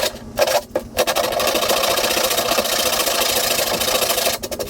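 Hand file rasping quickly back and forth over hardened melted-plastic patches on a plastic jet sled's hull, knocking the high spots flat. A couple of short strokes come first, then a long run of fast strokes that stops shortly before the end.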